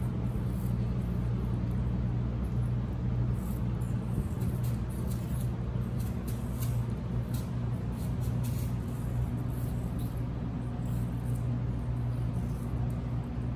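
A steady low hum runs throughout, with faint scattered clicks and ticks over it, most of them in the middle stretch.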